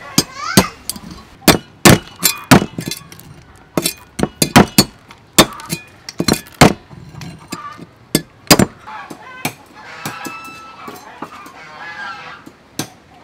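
A cleaver chopping tiny sea snails on a thick wooden chopping block, giving a string of sharp, irregular knocks of uneven loudness.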